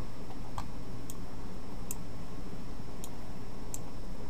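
Computer mouse button clicking about five times at uneven intervals, as tables are dragged about a diagram on screen, over steady low background noise.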